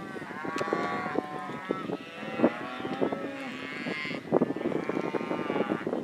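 A herd of cattle mooing, several long calls overlapping one another.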